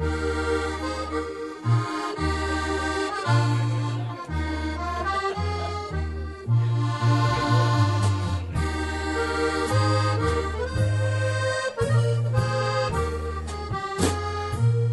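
Accordion playing a lively tune with a band, over alternating low bass notes.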